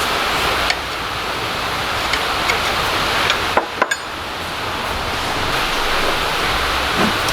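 Steady hiss-like background noise with a few light clicks, and a brief dip in the noise a little past halfway.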